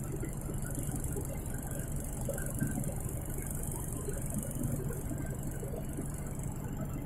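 A steady low mechanical hum under an even high hiss, with faint scattered light taps.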